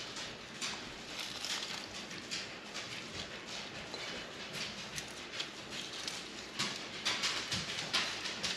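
Sugar-coated roasted cashews being scooped from the pan into a bowl: a run of light, irregular clicks and scrapes.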